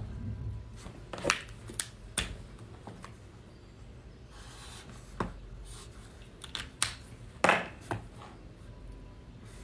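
A scattering of short, sharp clicks and taps from highlighter pens being handled, capped and uncapped over a paper textbook, about eight in all, the loudest about three-quarters of the way through.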